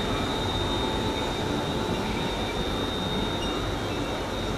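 Train at a station platform: a steady rumbling noise with a continuous high-pitched whine.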